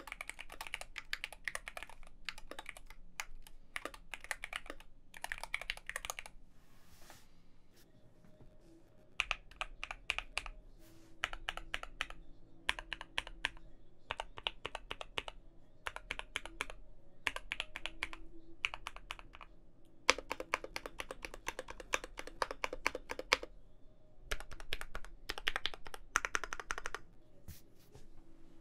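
Typing on a Keychron Q2 65% mechanical keyboard with a steel plate, foam and tape mod, and Gateron Ink Black V2 linear switches: quick runs of keystrokes broken by short pauses.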